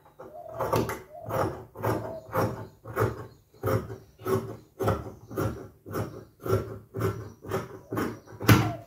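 Tailor's scissors snipping through folded fabric in a steady rhythm of short cuts, about three every two seconds, as the extra cloth is trimmed off along the marked edge.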